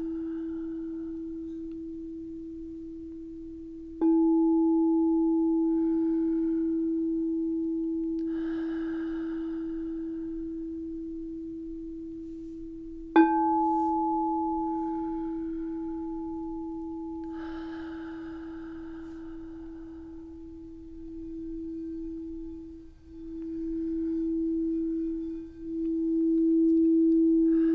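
Solar plexus singing bowl struck twice, each strike ringing on as one long tone that slowly fades. Near the end the tone swells and dips in waves, as it does when the mallet is circled around the rim.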